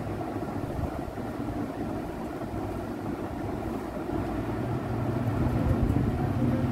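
Steady low background rumble that grows louder near the end.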